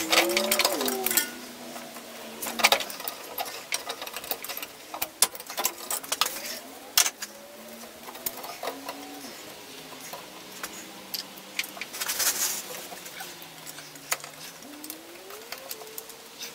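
Hand tools working in a car's engine bay: rapid mechanical clicking and metal clatter, busiest near the start and again about twelve seconds in. A faint tone glides up and down in the background.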